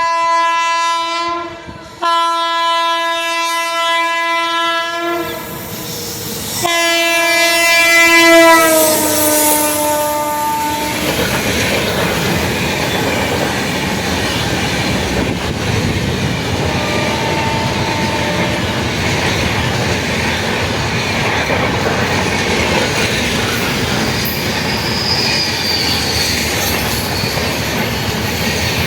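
WAP7 electric locomotive's horn sounding three long blasts, the third falling in pitch as the locomotive passes. Its train's coaches then roll by steadily with clickety-clack over the rail joints and brief wheel squeal on the curve.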